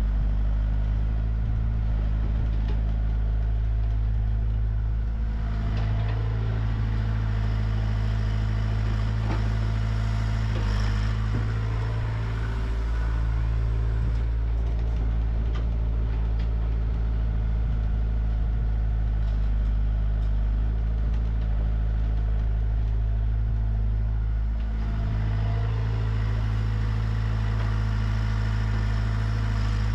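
Komatsu PC60 excavator's diesel engine running steadily as the machine digs and loads, its drone swelling from about five seconds in and again near the end as the engine works harder. A few light knocks and clatter come in the middle.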